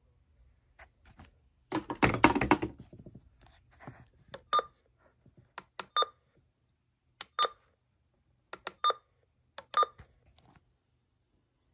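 MD319 weather alert radio giving a short electronic beep with each button press while its clock is set: five beeps at uneven intervals of about a second or more, each with a faint click of the button. About two seconds in there is a louder clatter of handling that lasts about a second.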